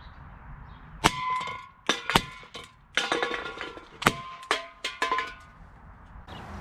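Sharp shots and metallic clangs as .177 pellets from a CO2 air pistol hit aluminium beer cans, which ring and clatter as they are knocked off the table. There are about eight sharp hits over some four seconds, starting about a second in.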